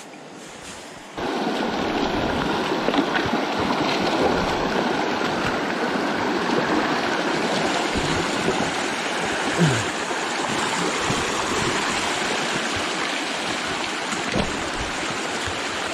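River water rushing steadily over rocks. It cuts in abruptly about a second in and holds to the end.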